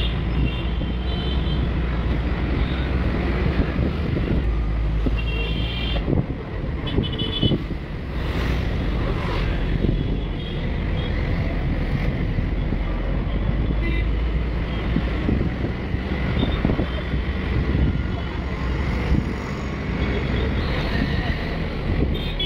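City road traffic heard from a moving vehicle: a steady engine and tyre rumble with wind, and short horn toots from nearby traffic, several in the first few seconds.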